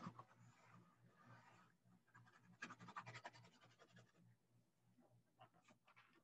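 Faint scratching of drawing on paper, with a run of rapid back-and-forth strokes about two seconds in that lasts about two seconds, and a few light taps near the end.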